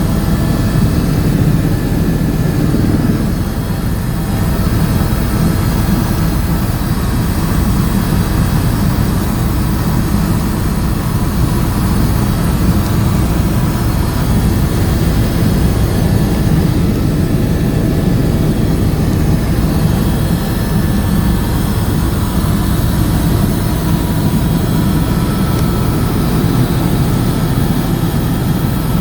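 Helicopter in flight, heard from aboard: steady, loud engine and rotor noise with a deep rumble.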